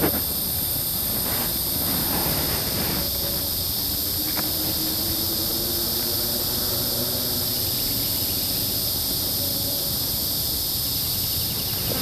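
Steady chorus of rainforest insects, several high-pitched trilling bands held unbroken throughout.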